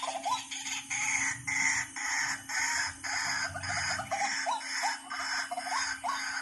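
White-breasted waterhen calls used as a hunting lure: a harsh, clucking call repeated about twice a second.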